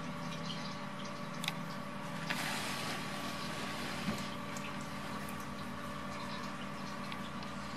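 A steady machine hum with a higher tone held above it, broken by a few small clicks and a brief rustle about two seconds in.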